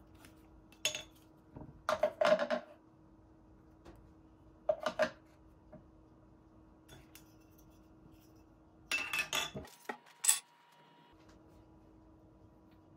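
Hard objects knocking and clinking in about five short clusters, over a faint steady hum.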